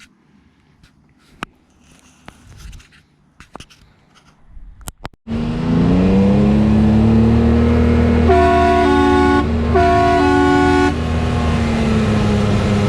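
A few faint clicks, then about five seconds in a Can-Am Maverick X3 turbo side-by-side's engine comes in suddenly and loudly, running steadily. Over it a Kleinn train-style air horn sounds twice, blasts of about a second each with a short gap, a chord of several steady tones.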